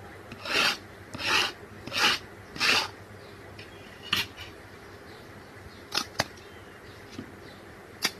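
A fork scraped four times across a crisp wheat-flour khakhra, a dry rasp with each stroke, followed by a few sharp snaps as the khakhra is broken by hand. The sound shows how crispy the khakhra is.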